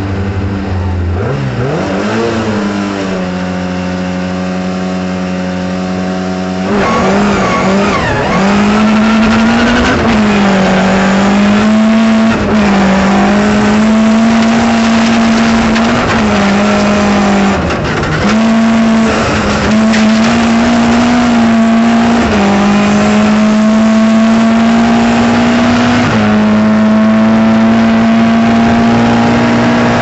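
A Ford Escort rally car's engine heard from inside the cabin. About a second in it is revved up and held steady at the start line. About seven seconds in the car launches hard onto gravel and runs at full throttle, the revs dropping briefly at each gear change every few seconds, over the rush of gravel under the tyres.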